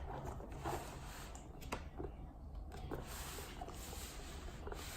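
Plastic pieces of a Play-Doh toy playset being handled and set in place: a scatter of light clicks and taps over a low steady hum.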